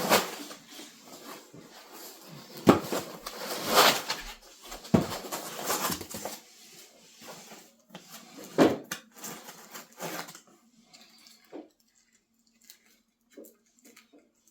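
Unpacking noises: a 3D printer's box and packaging being handled, with several sharp knocks and rustling over the first ten seconds, then near quiet.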